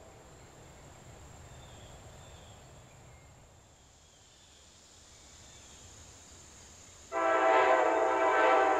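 Multi-chime locomotive air horn on a truck-mounted horn rig. A previous blast dies away at the start, a few seconds of faint background follow, and then a loud chord of several notes starts abruptly about seven seconds in and holds.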